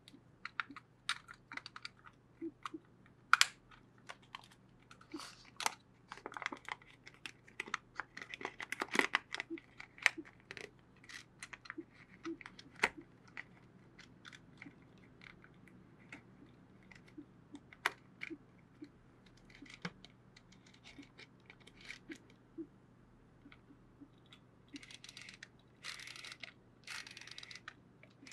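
Bronica ETRS medium format camera being handled: a long string of small mechanical clicks and knocks, with three short rasping noises near the end.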